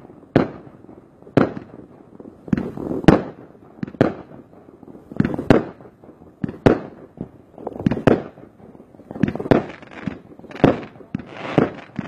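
Aerial fireworks bursting in the night sky: a string of sharp bangs about once a second, each trailing off in an echo. Toward the end the bangs come closer together with crackling between them.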